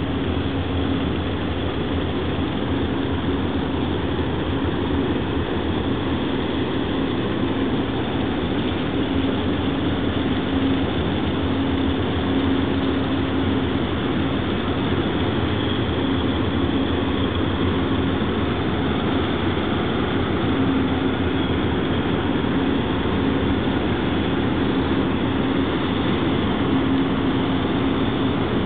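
A large chemical tanker's diesel engines and machinery run as the ship passes close by, making a steady low drone with a constant hum.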